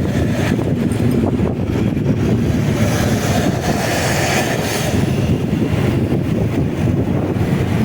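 Motorcycle on the move: steady wind rush on the microphone over engine and road noise, with a louder swell of hiss about three to five seconds in.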